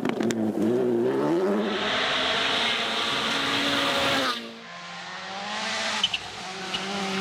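Rally car engine revving hard on a gravel stage, climbing in pitch, with a loud rushing noise for a couple of seconds. About four seconds in the sound drops away sharply, then the engine builds again, rising in pitch as it accelerates.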